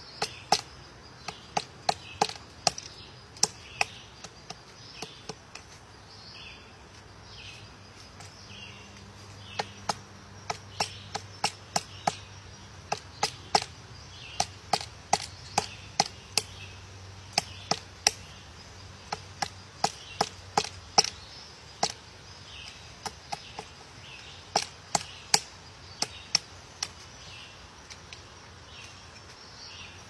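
Pileated woodpecker chiselling into a tree trunk as it digs out a large cavity: loud, sharp wooden knocks in irregular runs of several blows, broken by pauses of a few seconds.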